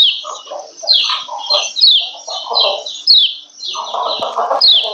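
Female kecial kuning, a yellow white-eye, giving fast, repeated high 'ciak ciak' calls: short sharp notes several times a second, broken by lower chattering bursts, the loudest near the end. These are the female calls that keepers play to bring males into breeding condition and get them singing.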